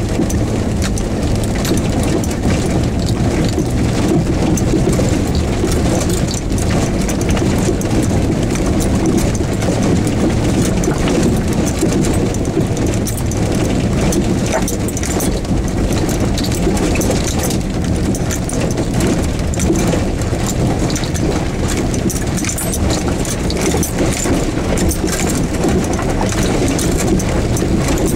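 Steady engine and cabin noise inside a lifted Jeep Wrangler YJ crawling over a rocky lane. Tyres crunch over loose stones, with constant small rattles and knocks throughout.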